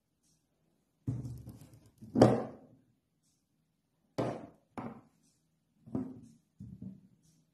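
Spice containers and glass jars being picked up and set down on a wooden table: six separate knocks, the loudest about two seconds in.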